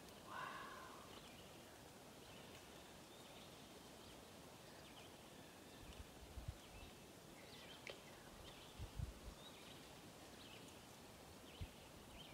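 Near silence: faint outdoor ambience with a few faint high chirps and some soft low thumps.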